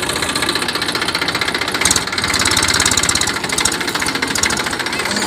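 Engine of paddy-threshing machinery running steadily with a rapid, even knocking beat, with one sharper knock about two seconds in.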